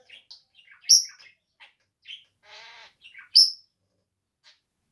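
Budgerigar chirping and chattering: a run of short, high chirps, with two loud, sharp ones about a second in and again two and a half seconds later.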